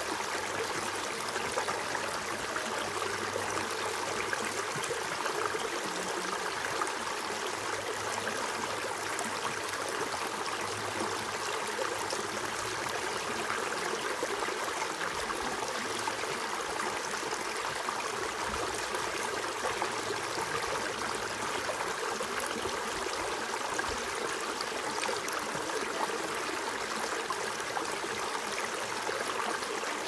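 Shallow rocky creek, its water running steadily over and between stones and small drops.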